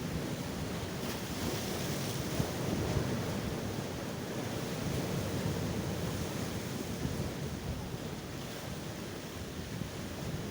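Sea waves breaking and washing in as surf, with wind noise on the microphone. A brighter hiss of breaking water comes about one to three seconds in.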